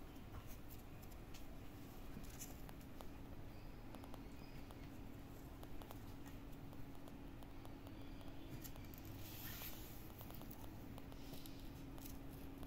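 Faint scratching and light irregular taps from a kitten's paws and claws batting a cloth toy on a string across a hard floor.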